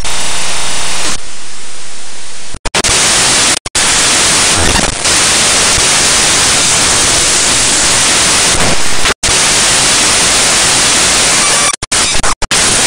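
Loud, steady hiss of digital static filling the audio track, the noise of a corrupted stretch of the recording. It is cut by a handful of brief, sudden dropouts to silence, several of them close together near the end.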